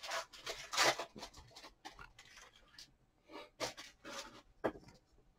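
Trading cards being handled and slid against one another: a string of short, quiet, papery rustles and scrapes at irregular intervals.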